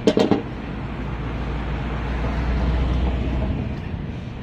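A few quick metal clanks, like a spatula striking a wok, right at the start. They are followed by a low rumble that swells to its loudest about three seconds in and then fades.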